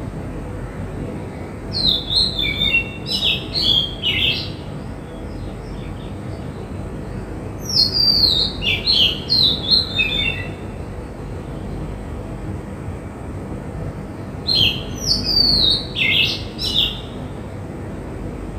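A songbird singing three short phrases of quick, falling whistled notes, each a few seconds apart, over a steady low background noise.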